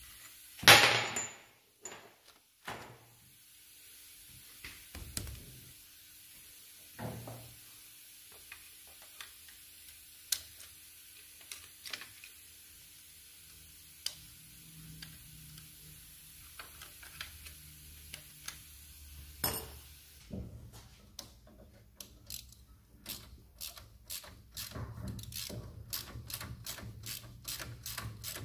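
Hand-tool work on a Range Rover Classic's front hub and brake assembly: a loud metal clank about a second in, then scattered knocks and taps. From about two-thirds of the way through, a ratchet spanner clicks rapidly and evenly, getting faster toward the end.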